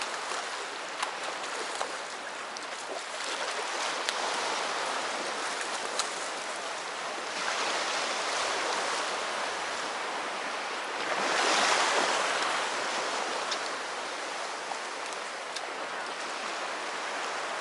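Sea waves washing against the shore, a steady wash that swells and fades three times, loudest near the end, with a few faint ticks.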